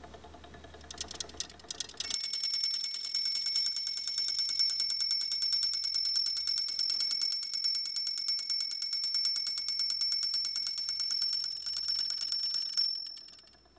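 Bell of an antique clockwork roasting-spit turner ringing rapidly and continuously like an alarm-clock bell, its hammer striking many times a second; this bell signals that the spring mechanism needs rewinding. A few clicks come just before the ringing starts about two seconds in, and it cuts off suddenly near the end.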